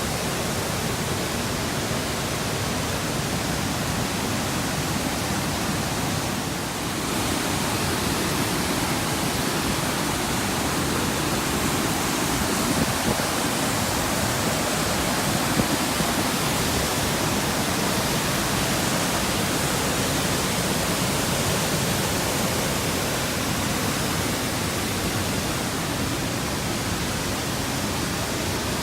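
Waterfall pouring: a steady, even wash of rushing water noise, briefly a little quieter about six seconds in.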